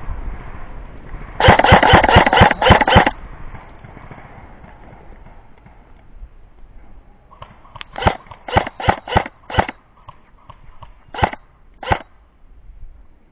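Airsoft guns firing. A loud rapid string of about ten shots comes about a second in. Then, from the middle to near the end, a run of single shots follows, spaced a fraction of a second apart.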